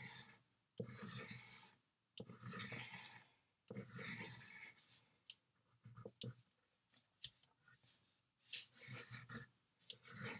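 Faint scratching of a wax crayon drawn across watercolor paper in long wavy strokes, each about a second long, followed by a few light ticks.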